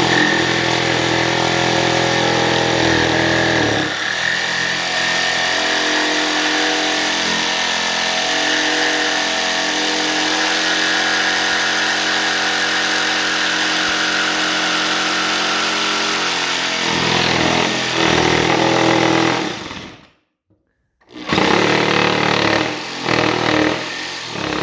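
Jigsaw with a scroll blade running under load as it cuts a push bar, its pitch shifting a few times during a steady run of about twenty seconds. It stops about twenty seconds in, then starts again in short bursts near the end.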